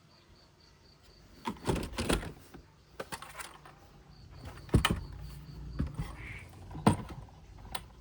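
Irregular knocks and clatter of hard objects being handled, with the sharpest knocks a little before five seconds in and about seven seconds in.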